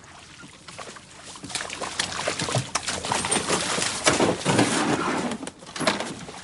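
Water splashing and sloshing around a small rowboat as it is hauled in to the bank, with knocks from the hull. The sound builds after about a second and a half.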